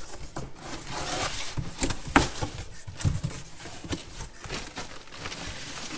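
Cardboard box being opened by hand: flaps scraping and knocking, with the crinkle of the plastic bag wrapped around the helmet inside. A sharper knock comes about two seconds in.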